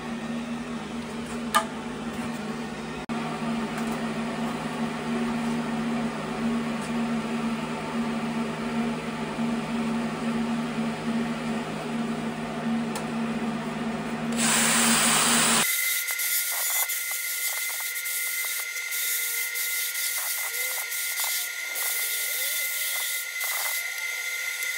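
A cordless die grinder with a carbide burr grinding out a cast-iron engine port, running steadily with a low hum. About two-thirds of the way through, the sound changes abruptly to a higher whine with scratchy grinding chatter.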